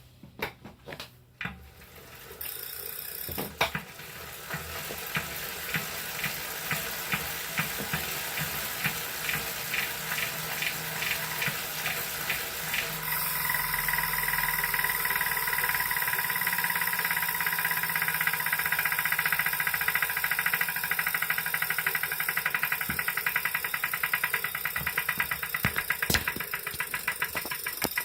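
Brand-new 2018 Wahoo KICKR direct-drive smart trainer being pedalled, giving a rhythmic knocking: a fault in a new unit. The knocks come faster as it speeds up, and the trainer's running whine comes in about halfway through, after a few separate clicks at the start.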